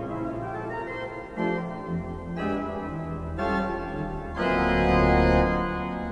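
Church pipe organ playing sustained chords that change about once a second, with deep bass notes entering about two seconds in; a fuller, louder chord sounds near the end and then fades.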